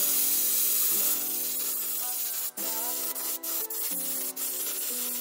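Airbrush spraying white paint onto a wooden lure body, giving a steady hiss that is cut by several brief breaks as the spray stops and starts.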